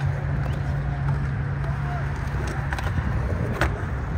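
Small hard wheels rolling on concrete: a steady low rumble, with a few sharp clicks and knocks along the way.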